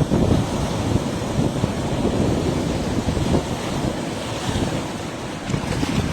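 Sea waves washing on a beach, a constant rushing surge, with wind buffeting the microphone.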